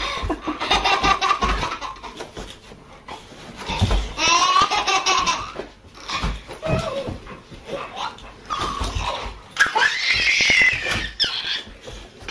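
A baby laughing hysterically in several high-pitched outbursts of giggles and squeals.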